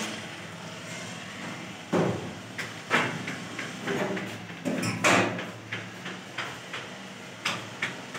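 A series of irregular knocks and bangs, about a dozen over eight seconds, with the loudest about two, three and five seconds in, over a faint steady low hum.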